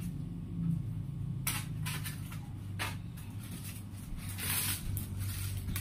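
Several short, soft clicks and taps at irregular intervals over a steady low hum.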